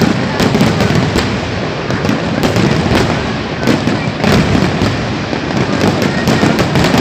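Fireworks display going off: many bangs and crackles in quick, irregular succession over a continuous din of bursts.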